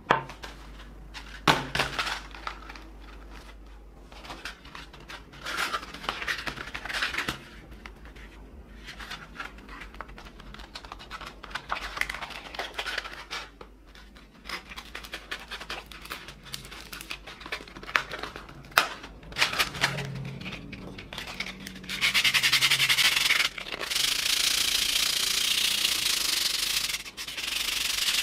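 A rusty metal hand-plane part knocks down onto a wooden workbench, then sandpaper is pulled from a roll, torn and folded, with crinkling. About 22 seconds in, hand sanding starts: abrasive paper scrubbing rapidly and steadily over the rusty metal to take the rust off.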